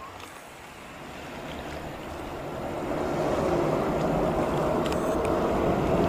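Boeing 737-800 jet airliner on approach to land, the rush of its engines swelling steadily louder from about a second in.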